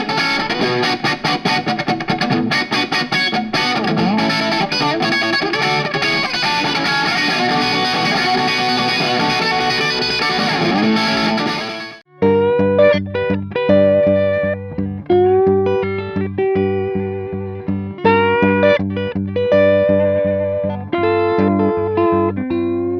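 Electric guitar recording played through an LA-2A-style opto compressor: a dense, distorted guitar part that stops abruptly about halfway through. A cleaner guitar follows, picking separate notes over a sustained low note.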